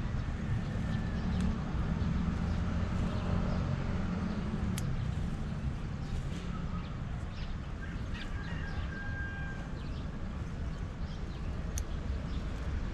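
Steady low rumble of road traffic with scattered bird chirps. Two sharp clicks, about five and twelve seconds in, from small scissors snipping leafy stems.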